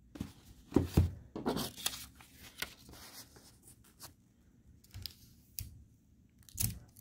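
Paper cards and tape being handled and pressed onto a cardboard tissue box: irregular short rustles and scrapes, louder about a second in and again near the end.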